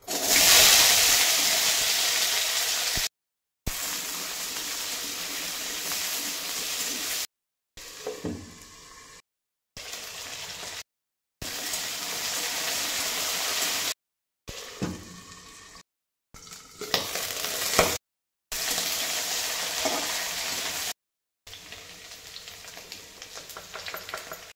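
Potato wedges hitting hot oil in a steel kadhai with a loud burst of sizzling, settling into a steady frying sizzle. The sizzle cuts off abruptly several times and comes back.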